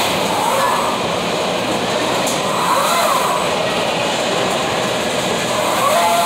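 Steady, loud mechanical running noise, with a faint tone that rises and falls about every three seconds.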